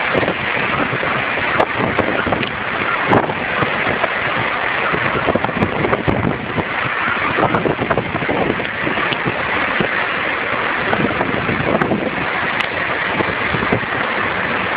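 Steady rushing wind on the deck of a moving ferry at sea, buffeting the microphone in irregular gusts.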